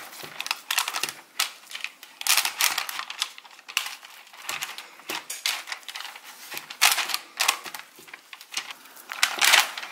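Parchment paper on a sheet tray crinkling and crackling under hands pressing and shaping a soft cauliflower-cheese dough, in irregular sharp rustles and taps.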